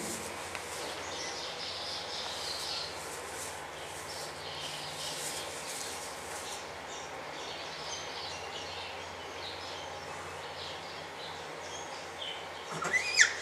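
Steady low background hum with scattered faint bird-like chirps. Near the end comes a brief louder high call that rises in pitch.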